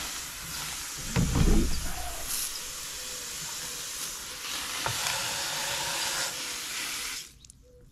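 Water spraying from a garden hose onto pool-cleaner filters: a steady rushing spray that cuts off suddenly near the end, with a brief louder low bump about a second in.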